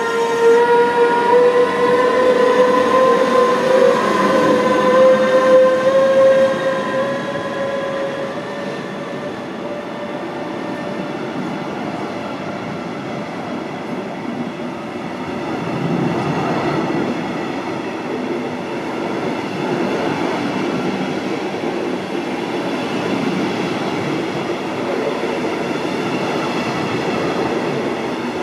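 Electric train at a station: its traction motors whine in a stack of tones that rise slowly in pitch over the first several seconds and then fade. From about halfway in, the even rumble of rolling train wheels grows louder and carries on.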